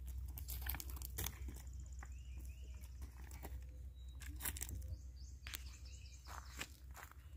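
Outdoor shoreline ambience: a steady low rumble with many scattered short clicks and crunches, like handling and footsteps on gravel, and a few faint bird chirps.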